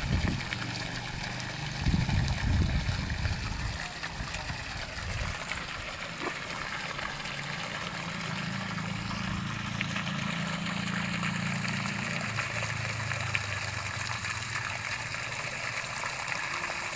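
Water gushing and splashing steadily from a drilled well's outlet, driven by a half-horsepower water pump whose low hum runs underneath. A few loud low rumbles come about two seconds in.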